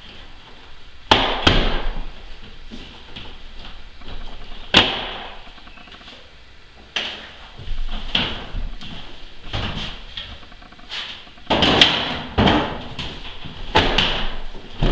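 Plastic housing of a mini split indoor wall unit knocking and clunking against its wall mounting bracket and the wall as it is hung and pushed onto the bracket's clips: a series of separate thumps, about eight in all.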